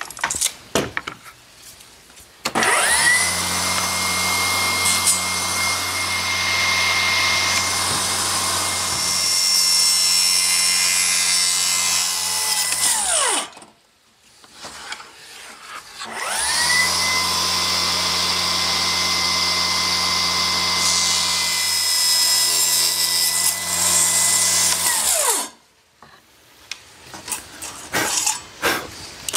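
Milwaukee Fuel table saw cutting a slatted wooden knife-block drawer insert to width, in two passes. Each time the motor spins up, runs steadily through the cut for about nine seconds, then winds down.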